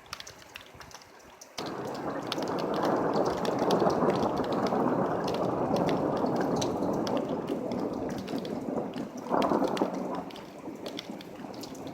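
Thunder rumbling: it breaks in suddenly about a second and a half in, rolls on for several seconds, swells again near the end and then fades. Rain drips and patters throughout.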